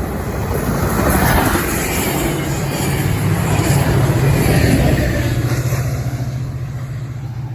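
Northstar commuter train passing, cab car leading and its MP36PH-3C diesel locomotive pushing at the rear: a rumble of wheels on rail that swells to a peak mid-way, with the locomotive's steady engine drone coming in about two seconds in and fading near the end.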